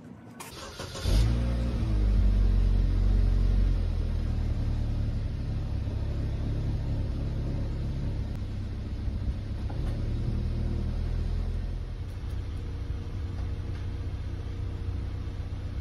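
Chevrolet Equinox engine cranking briefly and starting, its idle flaring up for a few seconds before settling to a steadier, lower idle.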